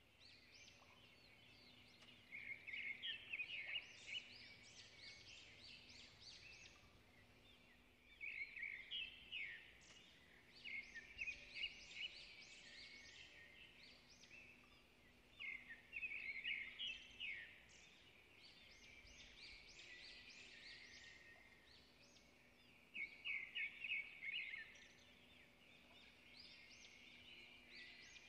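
Faint bursts of rapid, high-pitched bird chirping and twittering, a few seconds apart, over a faint steady hum.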